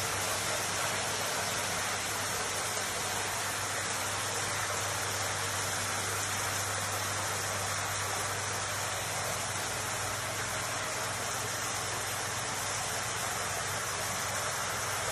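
Rain curtain water feature running: a curtain of many thin streams of water falling from an overhead steel channel and splashing steadily into the basin below, a constant hiss-like patter. A low steady hum runs underneath.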